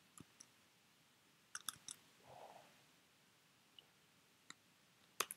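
Faint, scattered clicks of a computer mouse and keyboard in near silence: single clicks, and two quick clusters of two or three, one a little over a second in and one near the end.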